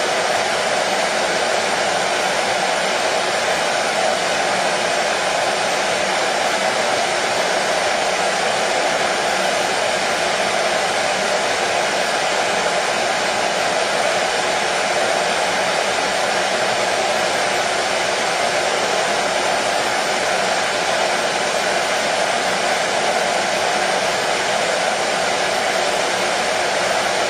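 Hair dryer running steadily: a constant even whoosh of blowing air and motor noise, strongest in the middle range, with no change in speed.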